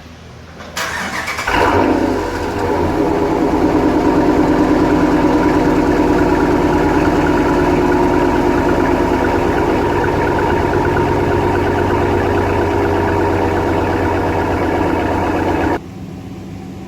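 A 2014 Ram 1500's 5.7 HEMI V8 is cranked and starts about a second in, then idles steadily on its newly replaced ignition coil pack, fitted to cure a cylinder misfire. The sound drops abruptly near the end.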